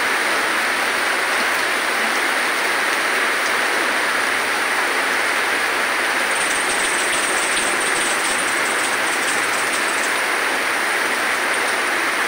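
Heavy tropical downpour: a steady, dense hiss of rain pouring onto wet pavement and parked cars.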